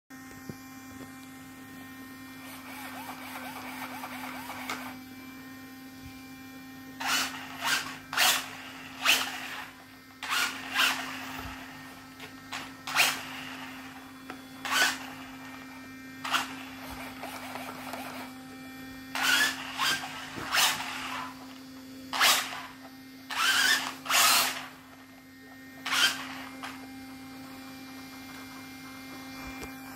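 ECX Torment 2WD RC truck's brushless motor and drivetrain revved in short throttle bursts, whirring up sharply and dropping away more than a dozen times from about seven seconds in, over a steady low hum. A softer, gentler whir comes a few seconds in.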